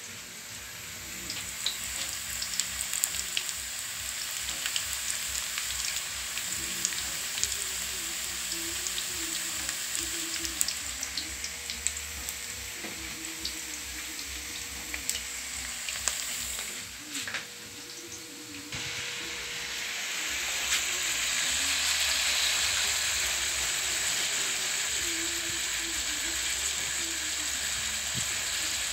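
Marinated pork slices frying in oil in a wok: a steady sizzle with scattered pops and crackles. Partway through, the sizzle briefly drops, then comes back steadier and a little louder.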